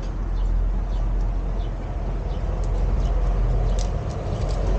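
Steady low rumble of background noise, with a few faint light clicks scattered through it.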